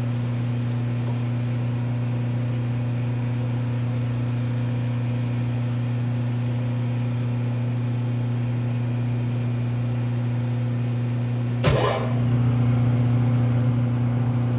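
Metal lathe running with a steady low hum while a part turns in the chuck and is dressed by hand with a file. About twelve seconds in there is one sharp knock, after which the hum is a little louder.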